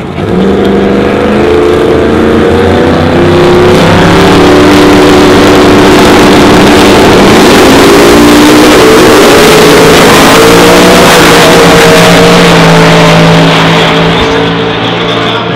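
Two drag-racing cars launching at full throttle one after the other: a Mustang leaves first about a second in, then the twin-turbo 526 ci Camaro Pro Mod a few seconds later. The engines climb in pitch through gear changes and fade away down the track near the end.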